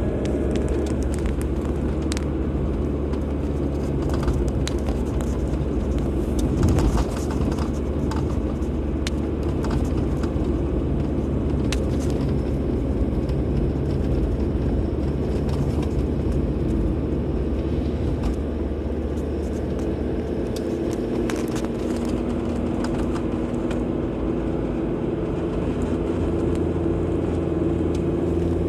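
A car driving on a road: a steady low engine drone under even road and tyre noise, with scattered light clicks and a single bump about seven seconds in.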